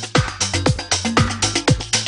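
Upbeat electronic dance music with a steady, fast drum beat, about four beats a second.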